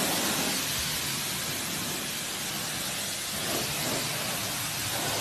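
Pressure washer spraying a jet of water over a car's interior door panel and dashboard: a steady hiss of spray.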